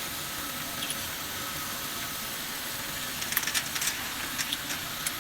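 Automatic bottle feeding and washing machine running with a steady hiss and a low hum, and a cluster of light clicks about three to four and a half seconds in.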